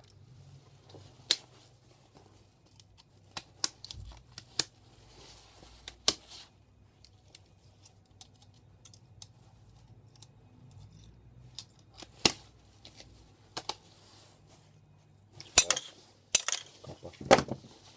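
Pliers working apart a plastic mains plug: scattered sharp clicks and snaps of metal and plastic, with a denser, louder run of snaps near the end.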